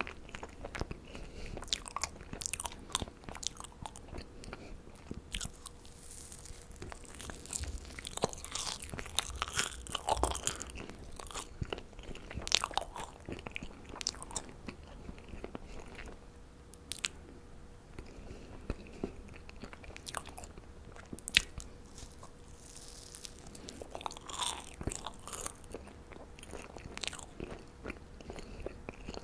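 Close-miked chewing and biting of marshmallows: irregular wet mouth clicks and smacks, with some crunchy bites.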